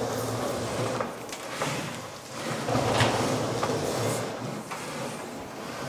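Low-voltage cable being pulled through holes bored in wooden wall studs: a continuous rough scraping rustle of cable sliding against wood, with a few light knocks.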